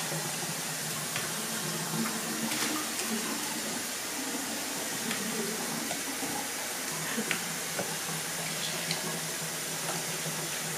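Steady running-water sound with a few faint splashes as an African grey parrot bathes in a shallow plastic tub of water; near the end water is poured over the bird from a cup.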